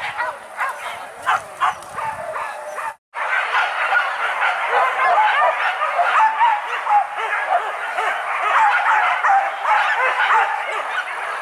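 A pack of hunting dogs yelping and barking at once in a dense, overlapping chorus, cut off briefly about three seconds in.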